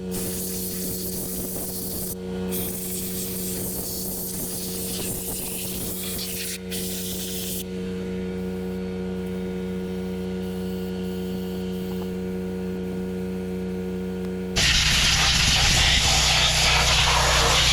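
Compressed air hissing in blasts with short breaks for the first several seconds, over the steady hum of a running generator. About 14.5 seconds in, an air compressor starts up with a loud, even noise, and the generator's hum shifts lower under the load.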